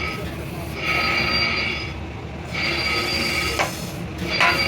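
Metal squealing in long, drawn-out strokes about a second each, repeating with short gaps, then sharp metallic knocks near the end.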